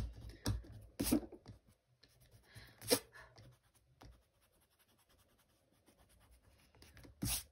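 A hand rubbing and brushing across sketchbook paper, cleaning up the pencil sketch: a few short, sharp paper rustles and scrapes, the loudest about three seconds in, with a quiet stretch in the middle.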